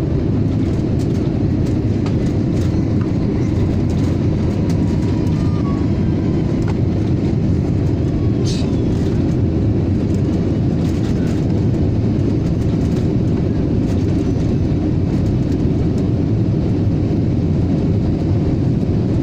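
Steady deep roar of jet engines and rushing air heard inside the cabin of an Airbus A320-family airliner climbing out after takeoff.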